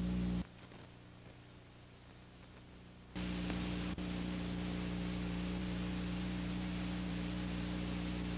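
Steady electrical hum with hiss, the kind of noise left on the soundtrack of a silent film transfer. It cuts out about half a second in, comes back abruptly about three seconds in, and drops out for an instant near four seconds.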